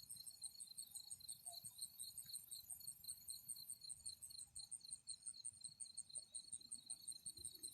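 Crickets chirping faintly at night: a steady, rapid, high-pitched chirping that does not let up.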